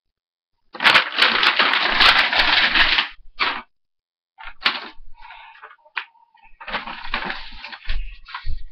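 Loud rustling and clattering in irregular stretches, with sharp clicks and a few dull thumps.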